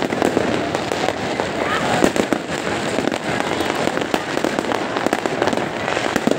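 Many fireworks and firecrackers going off at once: bangs and crackles in quick succession, with crowd voices underneath.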